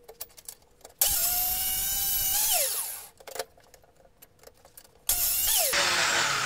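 Small metal chop saw switched on in short bursts while cutting 50 mm square steel tubing: the motor starts suddenly about a second in, runs with a steady whine and hiss, then winds down, and starts again near the end. The blade barely reaches through the tube, so the cut is made in short passes, with small clicks of the saw and workpiece between them.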